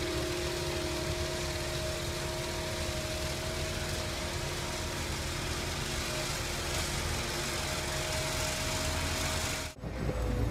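Engine and hydraulics of a tracked ditch-cleaning machine running steadily under load, with a steady pitched hum over the noise. About nine and a half seconds in, the sound cuts off abruptly and a different machine is heard running.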